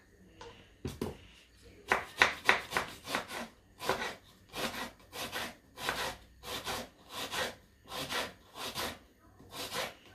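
Kitchen knife slicing an onion on a wooden chopping board: a regular run of cuts, about two a second, starting about a second in.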